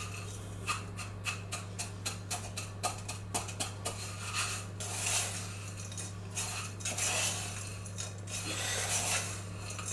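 A utensil stirring and scraping crushed biscuits and melted butter around a saucepan, with irregular clicks against the pan and stretches of scraping. A steady low hum runs underneath.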